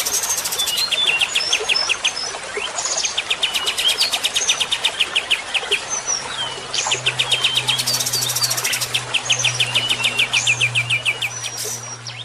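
Songbird masteran (training song) recording: fast trills of short repeated notes, about ten a second, alternating with short whistled and sweeping notes.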